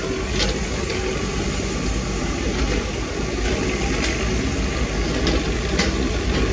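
Heavy construction machinery's diesel engine running steadily, with a few faint clicks or knocks over it.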